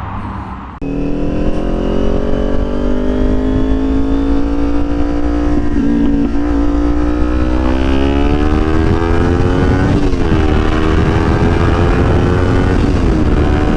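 Aprilia Tuono V4 1100's V4 engine running under steady acceleration, its pitch climbing slowly, with two brief dips in pitch, about ten seconds in and near the end.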